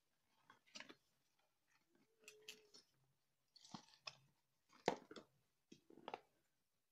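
Faint handling sounds of a rubber bicycle inner tube being pulled out of its cardboard box and set down on a wooden floor: scattered light knocks and rustles, the loudest about five seconds in, with a brief squeak about two seconds in.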